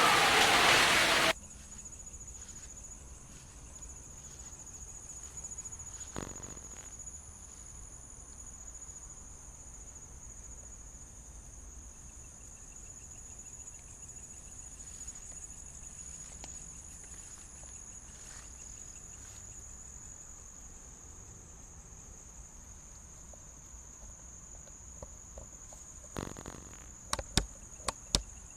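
Insects, crickets or similar, trilling in one steady high tone. A loud noise cuts off abruptly about a second in, and near the end come a few sharp clicks.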